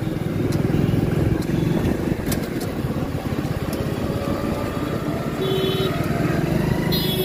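Motorcycle engine running steadily while riding, with road and traffic noise. There are two brief high beeps, one about five and a half seconds in and one near the end.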